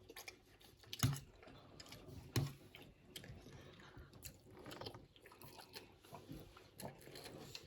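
Faint chewing of noodles, broken by scattered short mouth clicks. The loudest clicks come about a second in and again near two and a half seconds.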